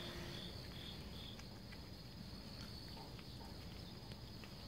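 A cat eating wet and dry food from a bowl: faint scattered clicks of chewing and licking, over a steady high-pitched whine.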